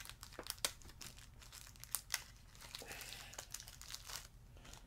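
Quiet crinkling of a small plastic wrapper handled and pulled open by hand, a run of irregular sharp crackles that stops shortly before the end.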